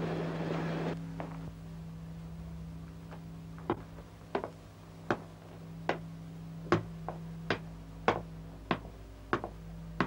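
Sharp single knocks at a slow, fairly even pace, about one every 0.7 seconds, some of them doubled, getting louder as they go. They sound over a steady low hum, and a rushing noise cuts off about a second in.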